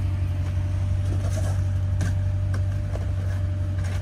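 Steady low mechanical hum with a fainter steady higher tone, like a running motor or machinery unit. Faint rustles and light clicks of items being handled in a cardboard box come through a few times.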